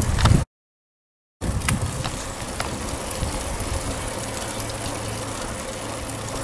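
Steady rumble of wind and road noise while riding a bicycle along a paved street, cut off for about a second of dead silence shortly after the start.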